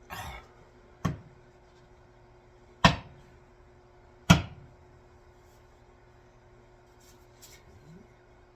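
Three sharp knocks, about a second and a half apart and each louder than the last, as the axe head is driven down onto its wooden handle to seat it. A brief scuffing noise comes just before the first.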